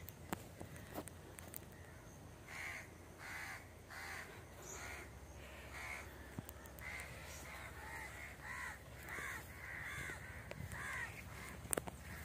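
A bird in the trees calling over and over, a run of about fifteen short calls one after another, with two sharp clicks, one just at the start and one near the end.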